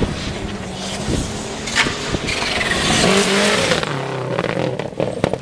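Subaru Impreza WRX rally car driven hard on gravel, the engine revving up and dropping back in steps through gear changes as it approaches. About three seconds in, a loud hiss of sprayed gravel and tyre noise comes as it slides past, and the engine note falls as it lifts off.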